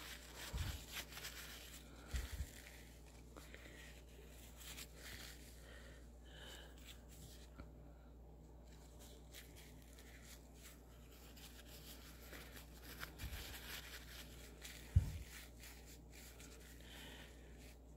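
Faint rustling and rubbing of a paper towel damp with eye makeup remover being wiped over the eye, with a few soft low thumps, the sharpest near the end.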